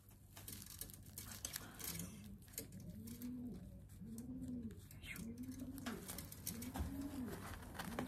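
Feral pigeon (rock dove) cooing repeatedly, about one rising-and-falling coo a second from about two seconds in, with soft rustling and crinkling of the self-adhesive bandage being wrapped around it.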